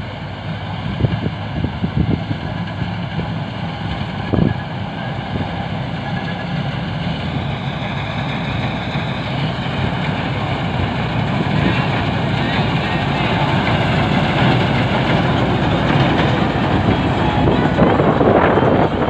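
Balkar B-546 combine harvester running as it cuts wheat: a steady engine hum with the clatter of the threshing gear, growing louder as the machine comes close and passes.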